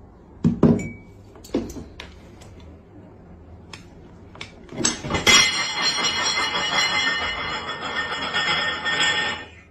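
Cutlery and crockery clinking a few times, then a knife sawing and scraping across a plate for about four seconds before it stops suddenly.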